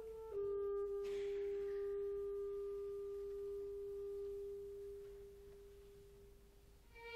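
Solo clarinet, unaccompanied, settles onto one long held note that slowly dies away to almost nothing over about six seconds. The orchestra's strings come in at the very end.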